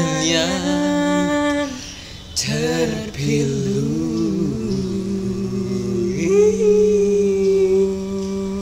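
Two young male voices singing unaccompanied, a cappella, in long held notes. A phrase ends about two seconds in and a new one starts half a second later. The last note is held steadily for the final two and a half seconds.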